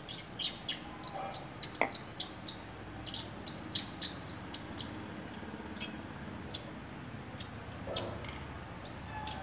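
Irregular small, sharp clicks and ticks of tiny metal dental-handpiece parts being handled and fitted by hand, over a steady low background noise.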